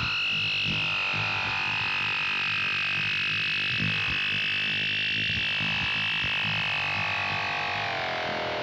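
Circuit-bent Waldman flanger pedal putting out an electronic noise tone: a steady high whistle over a choppy low buzz. The whistle and its overtones glide down in pitch near the end.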